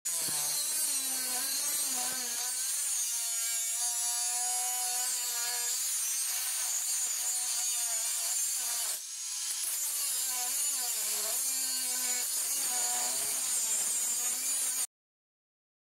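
Angle grinder with a cut-off disc cutting into a steel bar held in a vise: a steady high grinding hiss of disc on metal over the motor's whine, whose pitch wavers as the load changes. About nine seconds in the disc briefly eases off the cut, and the sound stops abruptly near the end.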